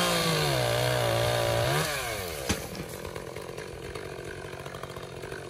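Chainsaw running at high revs, then the throttle is released just under two seconds in and the engine note falls away to a lower, steadier idle, with a sharp knock about half a second later.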